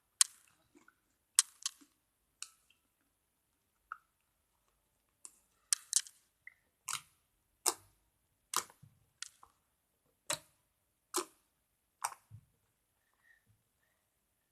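Homemade slime being handled by hand, giving an irregular series of about fifteen short, sharp pops and clicks with near silence between.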